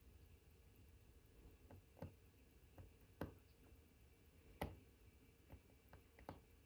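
Faint, irregular clicks and taps of watchmaker's tweezers and tools on the parts of a watch movement being assembled, about six in all, the sharpest a little past the middle.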